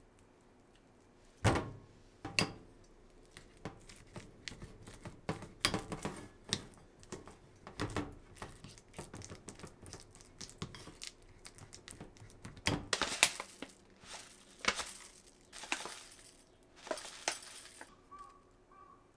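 Tableware being handled: an irregular run of clinks, knocks and clatters of dishes and cutlery, with a few sharper knocks and some longer scraping or rubbing sounds near the end.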